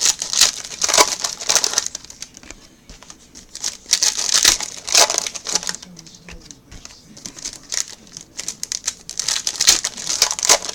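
Plastic wrapping on trading-card packaging crinkling and tearing as it is opened and handled, in bursts of crackle with quieter stretches between.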